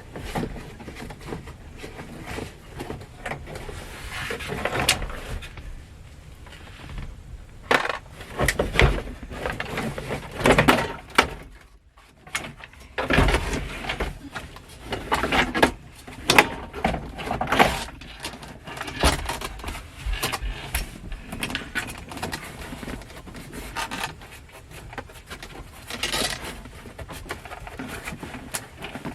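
Heater box of a 1966 Ford Mustang being wiggled and pulled free from under the dashboard: irregular knocks, clunks, clicks and scraping, with a few louder thumps.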